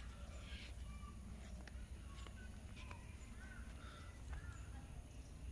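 Faint bird chirps and calls, short and scattered, over a low steady outdoor rumble.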